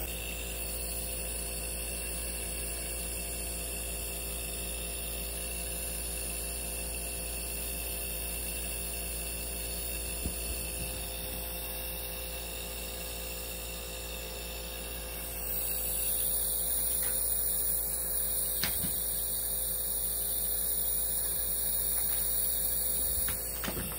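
Steady electrical hum with a thin high whine above it, growing a little louder about fifteen seconds in, with a few faint clicks.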